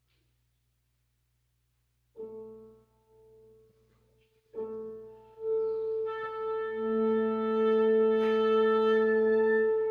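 Wind quintet playing sustained chords: after about two seconds of silence a short held chord sounds and fades, then a second entry about four and a half seconds in swells into a long, loud held chord.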